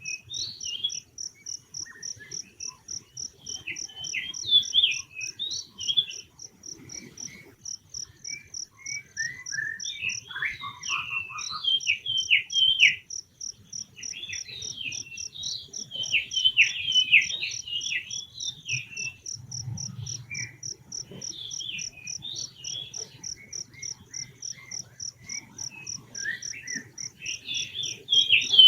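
An insect, cricket-like, chirping in a steady, evenly pulsed high trill, with clusters of short, high, falling chirps and squeaks coming and going over it.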